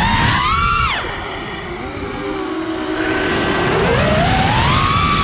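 Brushless motors and propellers of a 6S FPV freestyle quadcopter whining, heard from the camera mounted on it. The pitch drops sharply about a second in as the throttle is cut and stays low and quieter for a couple of seconds, then climbs steadily back up as throttle comes back in, over wind rumble on the microphone.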